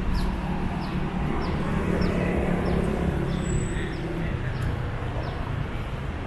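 City street ambience: a steady traffic rumble that swells as a vehicle passes in the middle, with a short high chirp repeating about every half second.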